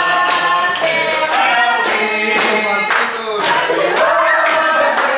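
A group of people singing together, clapping along in time at about two claps a second.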